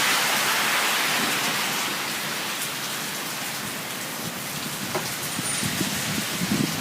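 Heavy rain falling in a thunderstorm, a steady hiss that eases a little midway and builds again towards the end.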